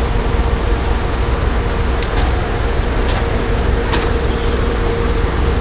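Vehicle engine running steadily at idle, a loud low drone with a steady hum. A few light, sharp clicks come around two, three and four seconds in.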